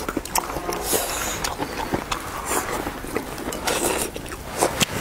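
People eating: chewing, with scattered small clicks of chopsticks against porcelain bowls at irregular moments.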